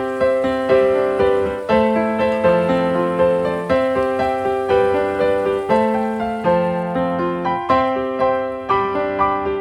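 Background music: a gentle piano or electric-piano tune, evenly paced notes over a repeating bass line.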